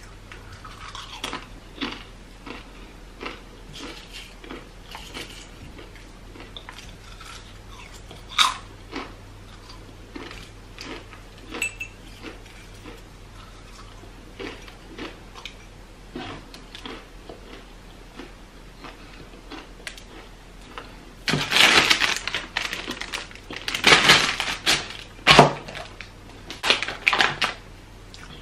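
Fried plantain chips being eaten by hand: scattered sharp crunches and clicks as chips are picked from glass bowls and bitten, then a louder, denser run of crackling crunches over the last several seconds.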